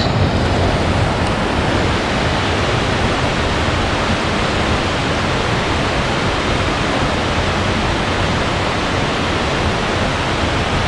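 A 240 ft single-drop mountain waterfall: falling water making a steady, even rush that stays constant throughout.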